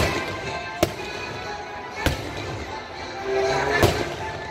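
Aerial fireworks shells bursting in three sharp bangs, about a second or two apart, over music playing throughout.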